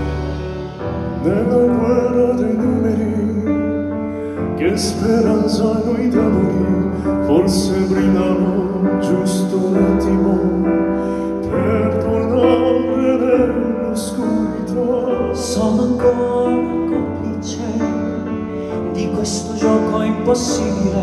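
Male vocalists singing a slow classical-crossover ballad live, accompanied by a band with strings, heard in the reverberant hall from among the audience.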